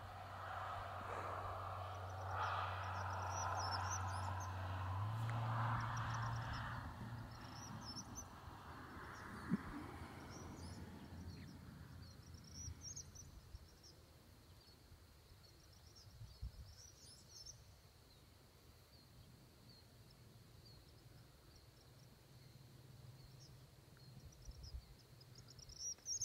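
Outdoor ambience with birds giving short high chirps every few seconds. A low steady hum and a broad rushing noise are heard at first, the hum stepping up slightly about five seconds in, and both fade away after about ten seconds, leaving the faint chirps.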